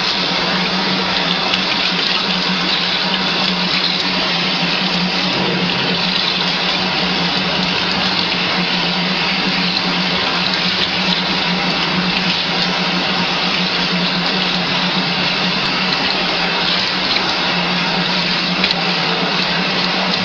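Tap water running steadily into a stainless steel sink, splashing over a plastic container held under the stream, with a steady low hum beneath.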